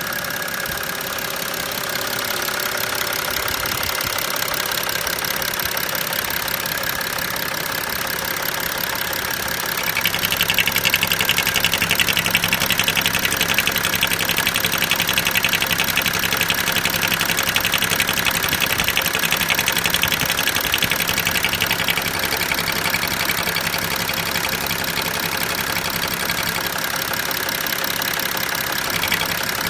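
BMW 335d's 3.0-litre twin-turbo straight-six diesel idling with its oil filler cap being removed. About ten seconds in, a louder, rapid, higher-pitched buzz joins the engine note, holds for about twelve seconds, then drops back.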